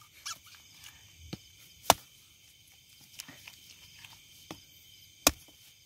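Dry wood being broken and chopped for firewood: a handful of sharp cracks, two of them loud, about two and five seconds in, with lighter snaps and rustles between. A faint, steady chirring of crickets runs underneath.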